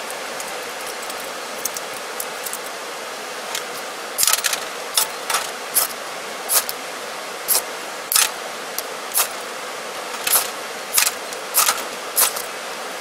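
A series of sharp metallic clicks and clinks, about one a second from about four seconds in, from a small folding metal stove and kettle being handled, over a steady hiss.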